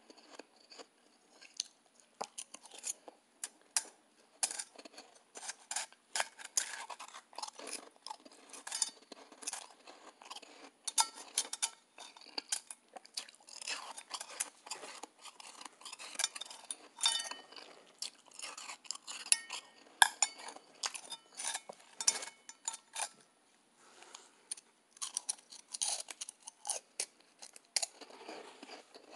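Close-up crunching and chewing of soft, blender-made ice in irregular crackly bites. A spoon now and then clinks against a stainless steel bowl with a short metallic ring.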